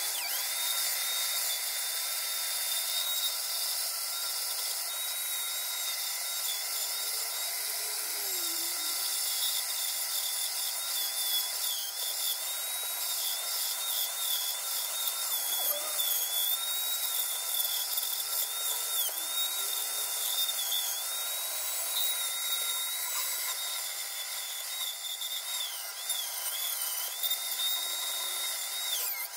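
Small high-speed power tool running steadily, its high whine dipping briefly in pitch again and again as it is pressed into the work.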